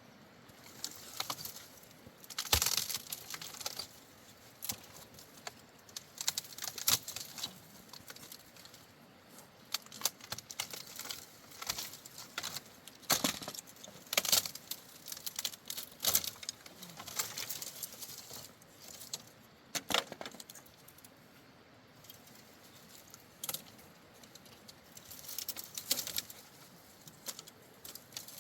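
Irregular light clicks, taps and rattles, a few every couple of seconds and sometimes bunched together, the sharpest about two and a half seconds in.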